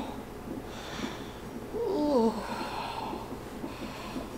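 A woman breathing heavily through a labour contraction, with one short moan about two seconds in.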